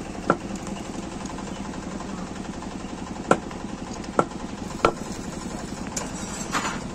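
An engine idling steadily, with four sharp clicks or knocks on top, the loudest about three seconds in.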